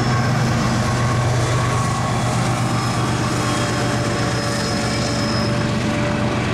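CSX GE diesel locomotives passing close by, their engines running with a steady low drone, followed by empty coal hoppers rolling over the rails.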